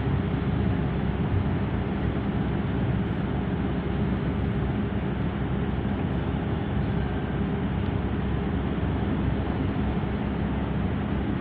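Steady engine drone and road noise heard inside a moving vehicle's cabin, with a low hum that holds one pitch.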